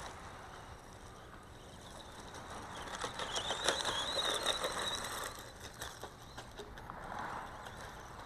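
Small brushed electric motor of a 1/18-scale RC short course truck whining as it drives over big gravel, with tyres crunching and scattering small stones. It gets louder from about three seconds in as the truck speeds up, then eases off about five seconds in.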